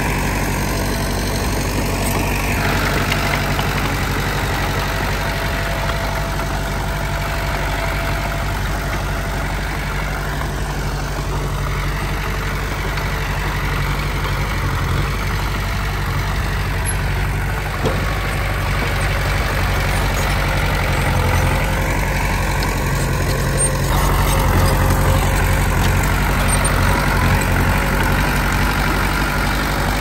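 Diesel engines of earthmoving machinery running steadily, with a brief click about halfway through; the engine grows louder and deeper about four-fifths of the way in.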